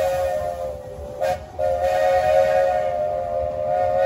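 The ride train's warning signal, a chord of several steady notes, sounds as the train nears a road crossing. A long blast breaks off briefly about a second in, then a second long blast follows and cuts off at the end.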